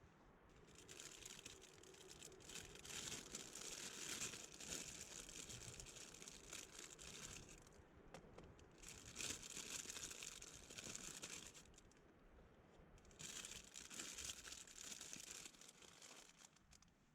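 Crinkly rustling, like material being handled, in three stretches with short pauses between them.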